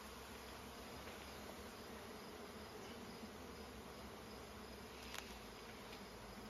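Honeybee colony humming steadily around an open, freshly disturbed hive, with a light knock about five seconds in.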